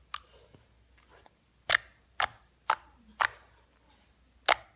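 Glossy clicky slime made of glue, water and borax activator being worked by hand. Its trapped air bubbles pop with sharp clicks, six of them about half a second apart.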